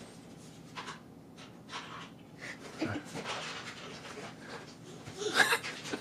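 A young girl's soft, breathy panting and faint mouth sounds, with a brief laugh about five seconds in.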